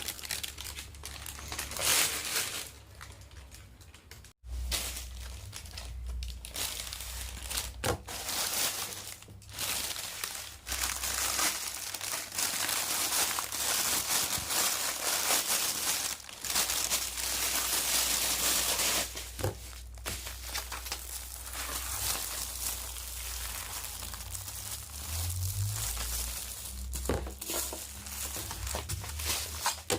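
Packaging being handled and opened: continuous crinkling and rustling with a few sharp knocks, over a low rumble of handling noise. There is a brief break about four seconds in.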